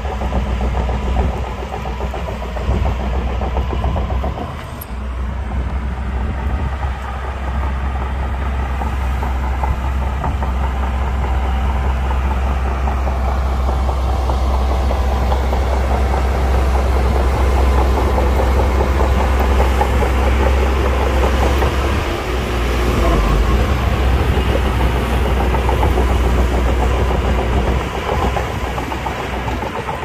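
Heavy diesel construction machinery running at work: a steady low engine drone that dips briefly about four seconds in and grows louder through the middle.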